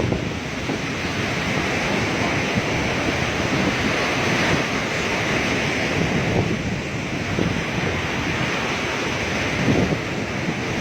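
Sea waves washing ashore in a steady rush, with wind buffeting the microphone in uneven gusts.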